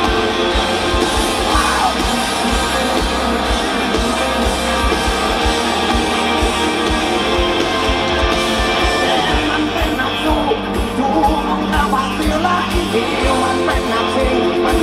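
Live rock band playing loudly: electric guitars and a steady kick-drum beat under a sung vocal line, recorded from the audience.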